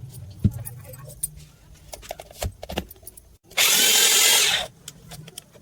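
A 26mm hammer drill running briefly, switched on for about a second with a loud whirring burst a little past halfway, after a series of small clicks and knocks from handling the tool.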